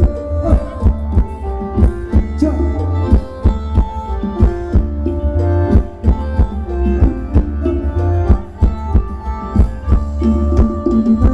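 Instrumental passage of Thai ramwong dance music from a band: a steady drum beat under sustained melodic lines, with no singing.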